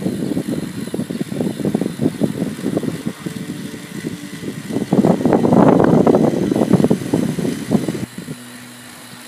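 LEGO Technic car with a double gearbox driving along, its electric motor and plastic gears whirring and its wheels rattling over rough concrete. The rattle is loudest a little past halfway. About a second before the end it drops suddenly to a quieter, steady hum.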